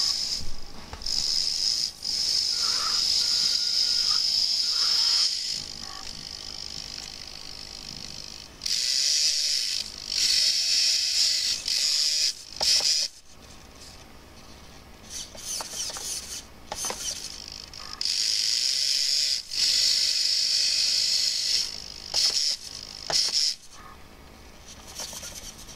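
Small electric winch motor and gearbox on a 1:20 scale RC crawler truck, whining high-pitched as it runs in several bursts of a few seconds each, with short blips between.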